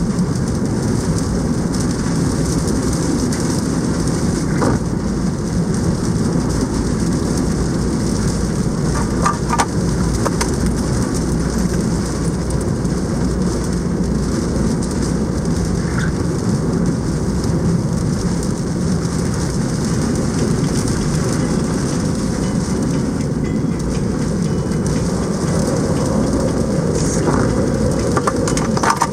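Typhoon wind and heavy rain: a loud, steady, deep rushing noise, with a few faint brief clicks around ten seconds in and again near the end.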